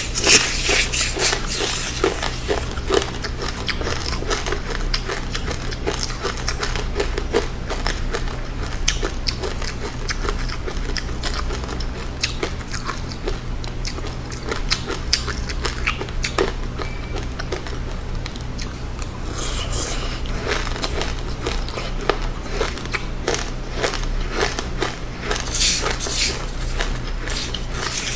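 Close-up crunching and crackling of dry seeds and grains being bitten and chewed: chilli seeds and buckwheat. It goes on without a break, with louder bunches of crunches at the start, about twenty seconds in and near the end.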